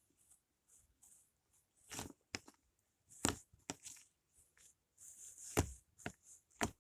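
Fluffy slime being stretched by hand, tearing and crackling in a series of irregular sharp bursts.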